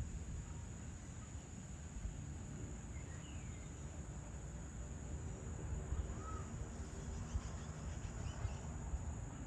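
Evening outdoor ambience: a steady high-pitched insect drone, with a few short bird chirps scattered through it over a low rumble.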